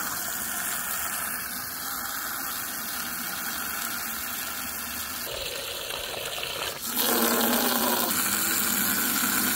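Garden hose spray nozzle jetting water into plastic buckets, a steady hiss. The sound shifts and gets louder about seven seconds in, as the stream lands in a bucket filling with water.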